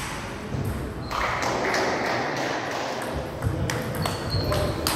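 Table tennis ball being played, a series of sharp ping-pong clicks as the celluloid ball strikes the table and rubber-faced paddles.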